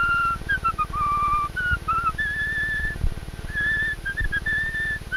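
A man whistling a short tune: clear held notes joined by slides, several of them stepping up and down. The tune is heard through a 1925 optical sound-on-film test recording, with a steady low rumble beneath it.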